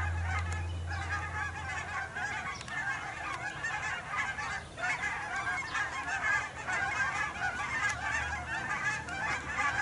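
A large flock of several hundred geese flying overhead, honking continuously, with many calls overlapping without a break.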